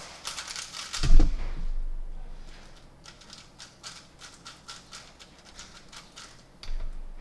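Moyu WRM 2019 3x3 speedcube being turned very fast, its layers clicking in rapid bursts. Two heavy thumps come about a second in and near the end.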